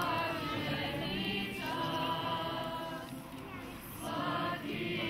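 A choir singing sustained notes in phrases, with a short break before the next phrase.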